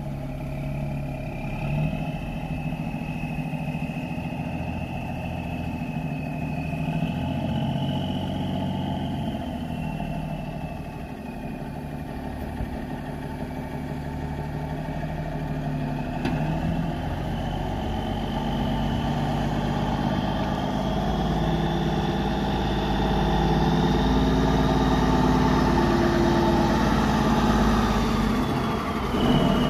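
The 1992 Freightliner FLD120's Cummins N14 six-cylinder diesel engine running steadily, with a thin whine that slowly rises and falls in pitch. The engine grows louder through the second half.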